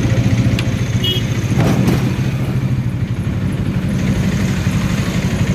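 Motorcycle engine running steadily while riding, heard from the rider's seat along with road and wind noise. There are a few brief higher-pitched sounds, one of them about a second in.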